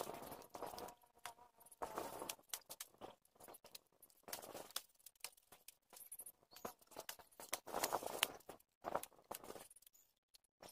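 Rustling and soft knocks of bundled rice seedlings being picked up and dropped into a rope carrying net, in short irregular bursts with scattered clicks.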